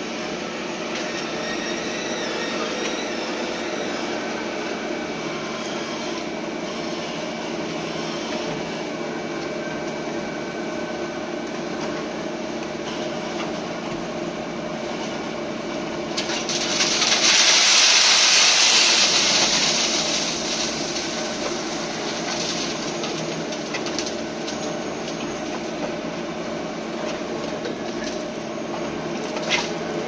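A wheel loader's engine running steadily. About halfway through, aggregate pours from its bucket into a metal hopper with a loud rushing hiss that lasts a few seconds. One sharp knock near the end.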